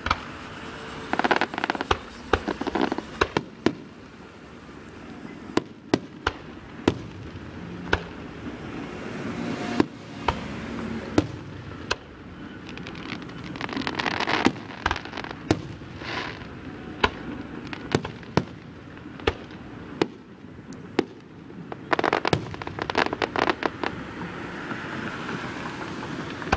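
Aerial fireworks shells going off in a display, many sharp bangs at uneven intervals, with dense clusters of rapid crackling pops at three points.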